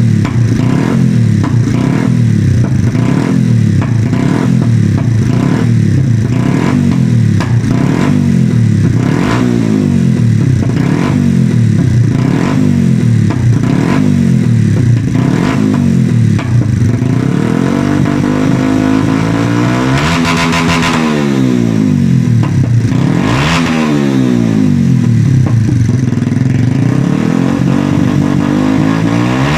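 Yamaha Vixion 150 (FZ150) single-cylinder engine through an SC Project M1 aftermarket exhaust, blipped about once a second for some fifteen seconds, then revved in slower, longer pulls, the two highest about two-thirds of the way through.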